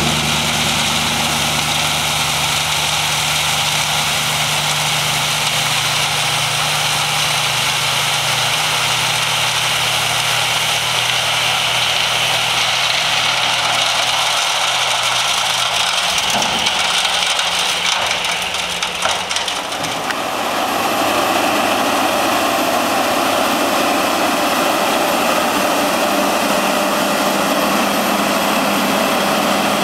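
Heavy diesel dump truck running slowly with its box raised while gravel pours from the tailgate in a tail spread: a steady low engine note with a hiss of sliding stone. About twenty seconds in it gives way to the diesel engine of a John Deere 772D motor grader running as its blade moves the fresh gravel.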